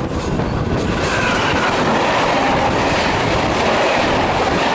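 Electric locomotive and its passenger coaches passing at speed on the next track, close by: a loud, steady rush of wheels on rails and air, heard from the open window of another moving train.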